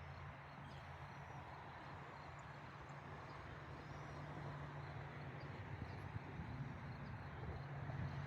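Steady outdoor ambience on a river bank: an even hiss with a low, constant hum beneath it and no distinct events.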